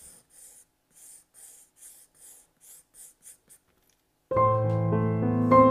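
Pencil sketching on paper in short, light strokes, about two or three a second. About four seconds in, piano music starts, much louder than the pencil.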